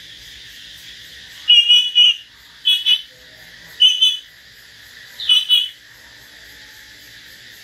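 Caged songbird whistling four short, loud phrases a little over a second apart, over a steady high hiss.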